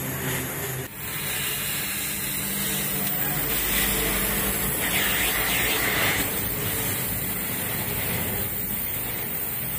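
Gas welding torch flame hissing steadily as it heats and welds the rust-eaten steel of a motorcycle frame. There is a short break about a second in.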